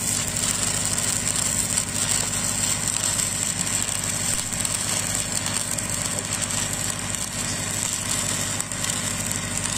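Stick-welding arc of a 6010 electrode crackling steadily as it lays the root pass on a steel pipe joint, over the steady hum of an engine running.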